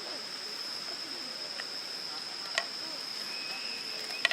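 A steady, high-pitched insect trill over the even hiss of a flowing stream, with two sharp pops, one about two and a half seconds in and one near the end.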